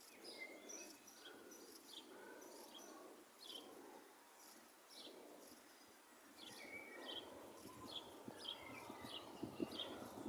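Faint birdsong: short, high chirps repeating through the quiet, settling into a regular run of about two or three chirps a second in the second half. A faint low rumble and a few soft knocks come in near the end.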